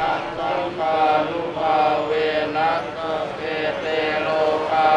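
Buddhist chanting of a Pali blessing during a morning alms round: several voices reciting together in long, drawn-out tones.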